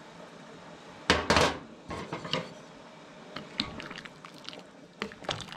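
Kitchen handling sounds: a loud, brief scraping rustle about a second in, then a few light scattered clicks and knocks of kitchenware being handled and set down.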